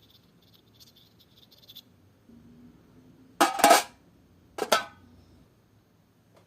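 Homemade foley sound effects: faint rapid clicking, then a low hum, then two loud noisy bursts about a second apart, the first longer than the second.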